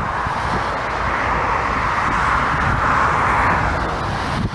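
Jet engines of a twin-engine airliner on final approach, a steady rushing whine that swells to its loudest about three seconds in and then eases off. Gusty wind buffets the microphone underneath.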